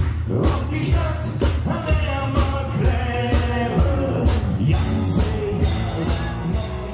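Live band playing an upbeat rock song: a male lead singer over electric bass, acoustic guitar and a steady drum beat of about two kicks a second.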